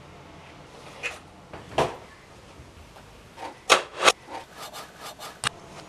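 Stiff paper model parts being handled and fitted by hand: a string of short dry taps and rubs, the loudest two about four seconds in, then several quicker, smaller ones near the end.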